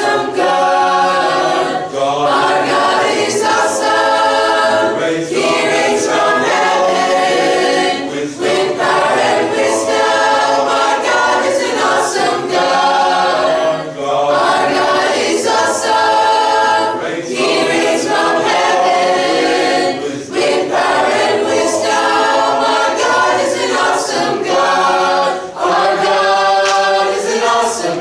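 A mixed-voice high school chorus singing in full harmony, in phrases with short breaths between them.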